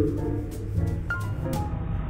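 Whale calling underwater: scattered short chirps at different pitches over a steady low hum, with a run of faint clicks in the first half.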